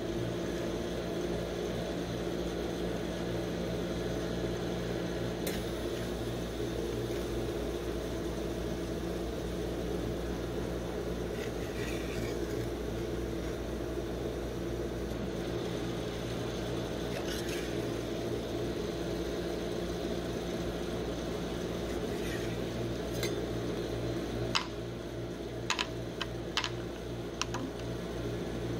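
Steady hum of a rolled-ice-cream cold plate's refrigeration machinery, with faint scraping as a spatula pushes the frozen ice cream into rolls. Several sharp clicks and taps come near the end.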